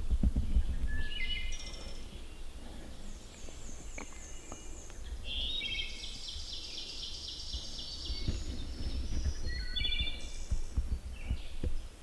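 Woodland songbirds singing, several overlapping songs of repeated chirps and trills, the longest trill about five to eight seconds in. Low rumbling bumps on the microphone come near the start and again later.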